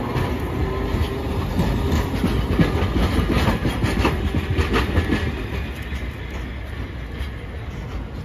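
A single-car streetcar running past on street-level track: a steady rumble with irregular wheel-on-rail clicking, loudest about halfway through and fading as it moves off.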